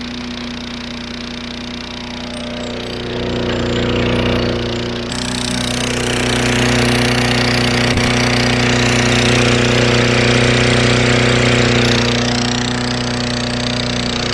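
Briggs & Stratton 125cc single-cylinder lawnmower engine running hard at a steady high speed, its throttle tied open and its fan shroud removed. It gets louder about three seconds in and again around six seconds.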